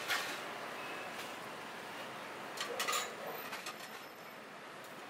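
Clatter of tableware over a steady background hiss: a sharp knock right at the start, then a quick run of clinks about two and a half seconds in.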